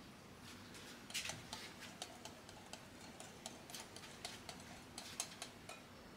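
A run of light, irregular clicks and taps, several a second, starting about half a second in and stopping near the end.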